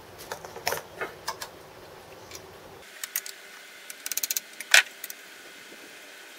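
Steel hand tools working on a clamp and a metal casting: scattered sharp metallic clinks and taps. About two-thirds through comes a quick run of about six ratchet clicks, then one louder knock.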